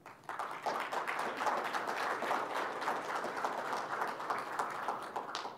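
Audience applause, many hands clapping at once, starting just after the beginning and dying away near the end.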